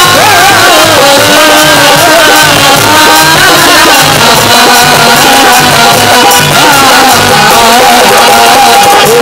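Live Haryanvi folk band playing an instrumental interlude between sung verses: a wavering lead melody over a steady percussion beat with rattling shakers.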